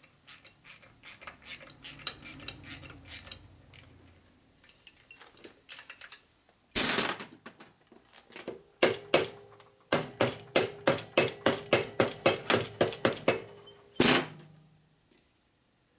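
A socket ratchet clicking in quick runs, about three to four clicks a second, as bolts are turned on a Harley-Davidson shovelhead engine's top end; the later run rings with a metallic tone. Two louder clatters of metal tools come about seven seconds in and near the end.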